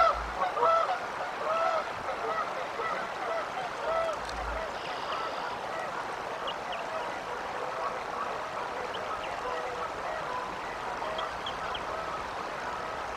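Geese honking repeatedly, the calls thinning out over the first few seconds, then a steady outdoor hiss with only a few faint scattered calls.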